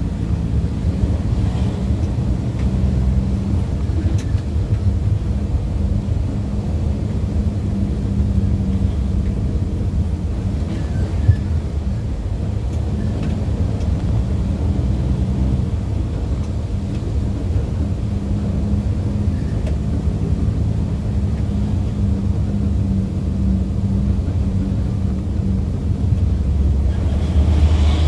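Steady low engine and road rumble of a vehicle driving slowly, heard from inside the cab, growing slightly louder near the end.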